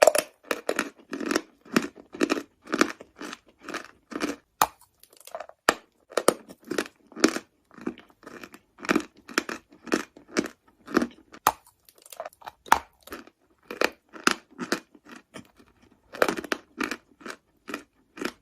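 Close-miked chewing of dry chalk: a steady run of crisp crunches, about two a second, with sharp snapping clicks among them as the chalk breaks between the teeth.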